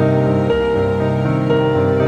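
Background music: a gentle, slow instrumental with notes changing about every half second.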